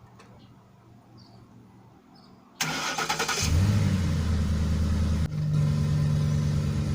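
2010 Ford F-150's V8 engine started by remote start: a brief crank about two and a half seconds in, catching into a raised idle that settles to a steady idle about two seconds later.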